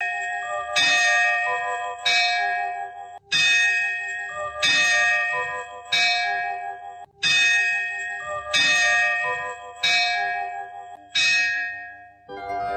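A bell struck over and over, about nine strikes roughly a second and a quarter apart, each one ringing on with several steady tones before the next. Just before the end, piano-like music comes in.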